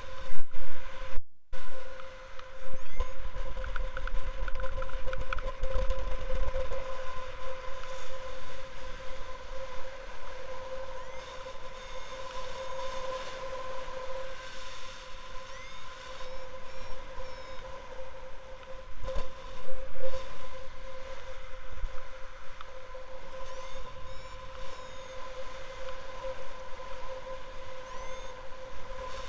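Wind buffeting a paraglider's camera microphone in flight, gusting harder in the first few seconds and again about two-thirds through, over a steady high electronic tone from the flight variometer.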